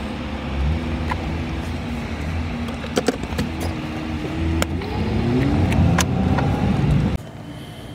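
Car engine running, heard from inside the cabin, rising steadily in pitch as the car accelerates, with a few scattered clicks; it cuts off abruptly about seven seconds in.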